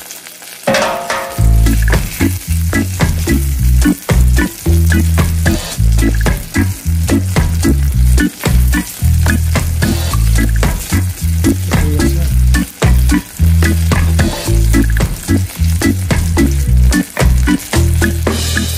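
Eggplant and garlic sizzling and crackling in hot oil in a frying pan, with a wooden spatula stirring and scraping the pan. A low rumble comes and goes underneath.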